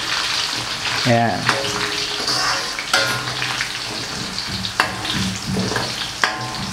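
Garlic cloves deep-frying in hot rendered chicken fat in a wok, a steady sizzle that flavours the chicken oil. A metal spatula stirs through the oil and clinks sharply against the wok a few times.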